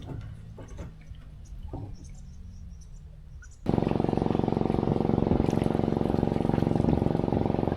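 Small boat engine: a faint low hum with a few light clicks, then about two-thirds of the way through a loud, steady engine run comes in abruptly.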